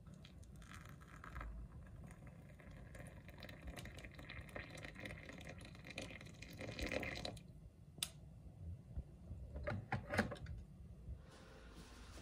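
Hot water poured from a kettle into a ceramic teacup holding a green tea bag: a steady splashing pour of about seven seconds that grows louder toward its end. Then a few sharp clicks and knocks of the kettle and cups being handled.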